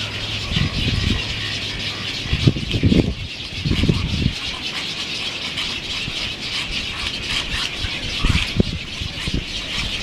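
Constant high chatter of a nesting waterbird colony of egrets and spoonbills, with low rumbling bumps of wind or handling on the microphone several times, the loudest between about two and a half and four seconds in.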